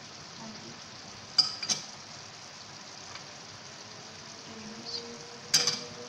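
Spoon clinking against a metal cooking pot as spices are tipped in: two clinks about a second and a half in and one more near the end. Under it, a steady faint sizzle of beef and tomatoes frying in the pot.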